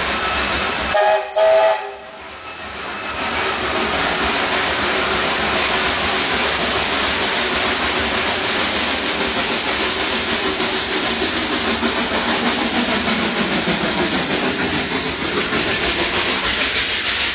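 Steam locomotive whistle giving two short blasts about a second in. Then a steady hiss builds as the steam train passes the crossing.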